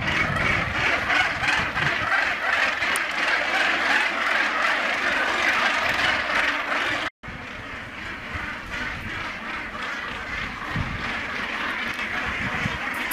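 Northern gannet breeding colony calling: a dense, continuous chorus of calls from many birds at once. It breaks off for an instant about seven seconds in and then carries on a little quieter.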